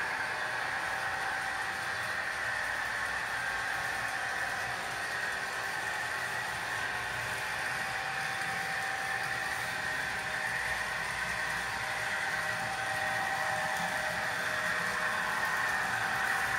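A steady mechanical whir with a faint hum, running evenly without change.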